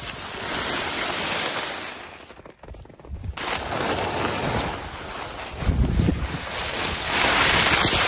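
Head Supershape skis carving and skidding on packed snow, the edges hissing and scraping under wind rushing over the microphone. The noise drops away for about a second some two and a half seconds in, then comes back louder, with low wind buffeting about six seconds in.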